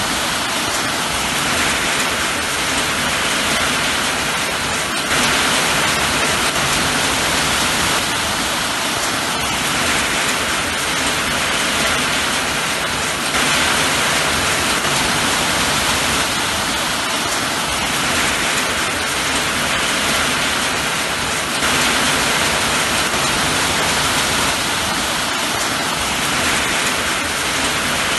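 Steady rain falling, an even hiss with no thunder. The level swells slightly about every eight seconds.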